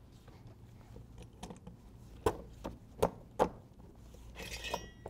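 Several short knocks as a rubber conveyor belt end is handled over the bolts of steel solid-plate fasteners, then a brief metallic jingle of the loose plates and bolts shifting, near the end.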